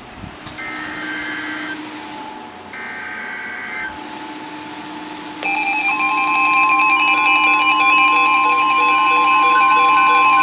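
NOAA Weather Radio SAME alert header: two short bursts of warbling two-pitch data tones. About five and a half seconds in, the weather radios' alarms go off together: a steady warning tone with shrill pulsing beeps layered over it, signalling an incoming severe thunderstorm warning.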